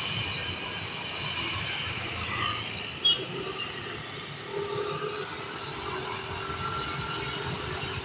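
Roadside traffic noise from motorcycles passing on a two-lane highway, their engine tone falling slowly through the second half, over a steady high-pitched background whine.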